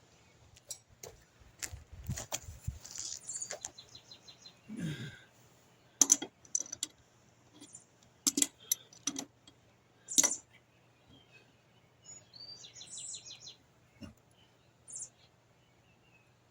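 Metal wrenches clicking and knocking against tight bolts on a Yamaha TW200 motorcycle: a string of sharp, separate metal clicks. Small birds chirp in the background, with a quick trill about two-thirds of the way through.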